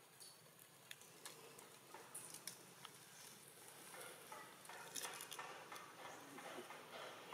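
Faint scattered clicks, taps and rustling, irregular and busier in the second half.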